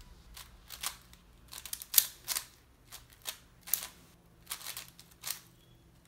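A 5x5 Cubicle Wushuang M speedcube being turned fast, its plastic layers clacking in quick, irregular bursts, the loudest about two seconds in.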